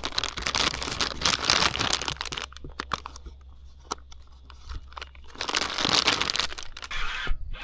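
Plastic bag of soft plastic baits crinkling and rustling as it is handled and opened, in two spells with a quieter pause in the middle.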